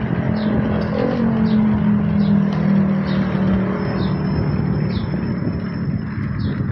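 Motor vehicle engine and road noise: a low engine hum rises in pitch about a second in and holds steady over a haze of traffic noise. A short high chirp repeats a little more than once a second throughout.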